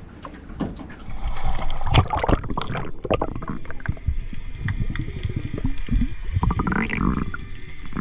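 Muffled underwater sound heard through a camera's waterproof housing: water moving and bubbling, with many small knocks and clicks.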